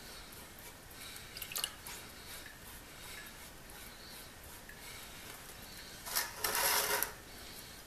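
Wet blacksmith shears being handled over a bucket of baking-soda electrolyte: a few light clicks of metal about a second and a half in, then near the end a louder rush of water, about a second long, running off the blade into the bucket.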